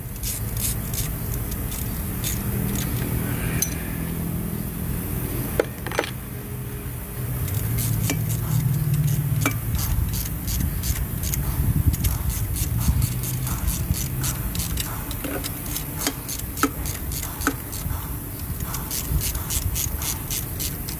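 Ratchet wrench clicking in short quick runs and metal tools clinking against the camshaft caps of an open cylinder head, with a louder knock about six seconds in, over a steady low hum.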